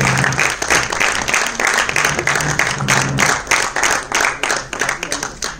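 Audience applauding with dense clapping that thins out and fades near the end.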